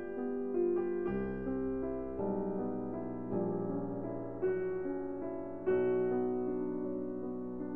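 Background music: a slow, gentle piano piece, with held notes and a new chord about once a second.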